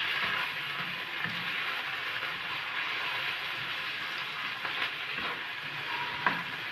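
Chopped onions, chillies, capsicum and tomatoes with cashews sizzling steadily as they fry in ghee in a wok, stirred with a spatula, with a few light scrapes of the spatula on the pan.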